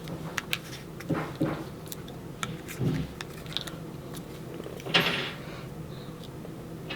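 Small handling noises from scrapbook paper crafting: light paper rustling and scattered soft clicks and taps as foam adhesive squares are applied and paper balloon cutouts are pressed down, with a louder brief rustle about five seconds in.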